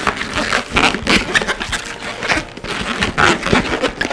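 Latex modelling balloons squeaking and rubbing against each other in quick, irregular strokes as the neck of a 6-inch quick link is twisted and wrapped around the small bubbles of a 5-inch round balloon.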